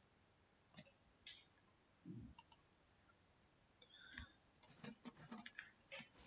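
Faint, scattered clicks of a computer keyboard and mouse, coming thicker near the end, with one soft low thump about two seconds in.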